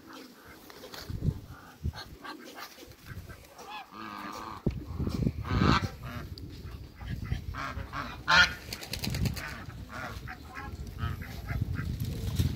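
African geese honking, a series of loud calls from the flock, the loudest about eight seconds in, with a low rumble underneath from about halfway.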